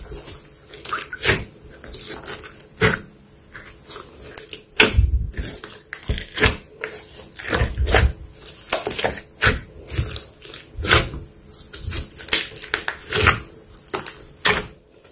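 Slime being squeezed and poked by hand, making irregular sticky clicks and pops, with a few heavier squelches.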